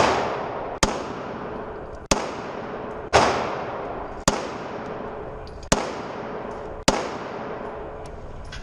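Handgun shots fired one at a time, about a second or so apart, seven in all, each followed by a long echoing decay.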